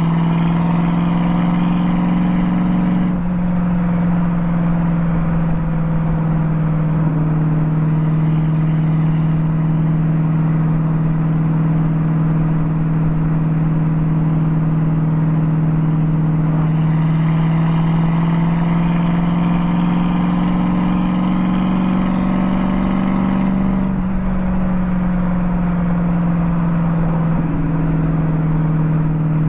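TVR Chimaera 450's V8 running at a cruise, heard through a microphone at the rear number plate, so mostly exhaust. The tone goes duller about three seconds in as the throttle eases. It fills out again with a slight rise in pitch from about halfway as the car pulls, then eases back near the end.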